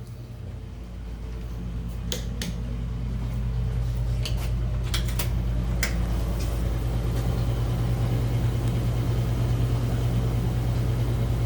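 Steady low motor hum that grows louder over the first few seconds, with a handful of sharp clicks between about two and six seconds in.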